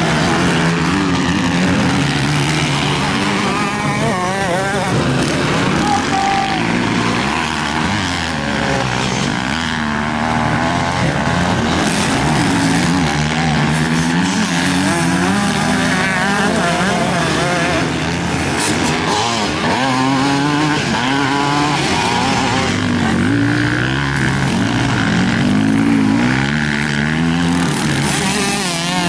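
Motocross bikes racing, their engines revving up and falling back as the riders work the throttle and shift through the gears. Several engines overlap, each pitch rising and dropping.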